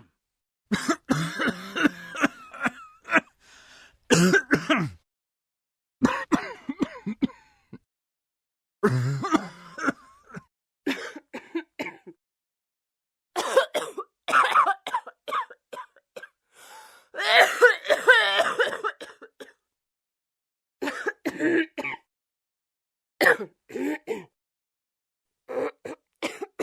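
A person coughing and clearing their throat in a string of separate coughing fits, about nine in all, each a second or two long, with short gaps of total silence between them.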